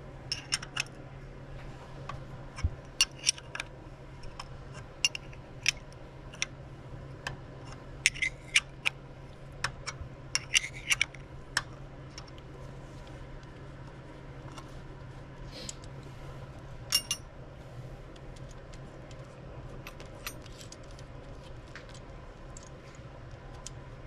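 Hand tools clinking and tapping on metal while the nuts holding a carburetor on a flathead V8's intake are loosened and taken off: irregular sharp clicks, thickest in the first half and again briefly later, over a steady low hum.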